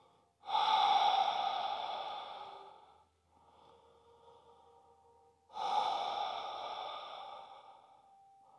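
A person's long, audible exhales during a yoga stretch: two breaths, each starting abruptly and fading away over about two and a half seconds, the second about five seconds after the first.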